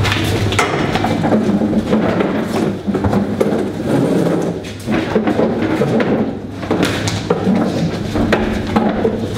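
Plastic chairs and metal-framed desks being dragged and set down on a hard floor: repeated knocks and scrapes.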